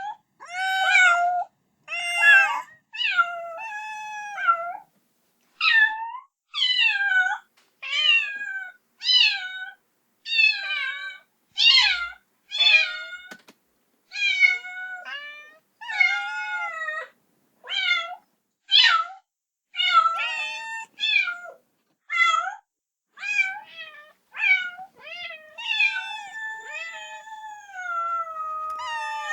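Kitten meowing over and over in high-pitched cries, about one a second, calling for its mother, with one longer drawn-out meow near the end.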